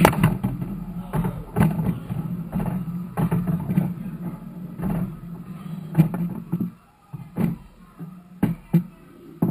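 Pool balls clacking together as a shot is played, then balls rolling across the table with a steady low rumble that stops near the end, followed by a few separate sharp knocks.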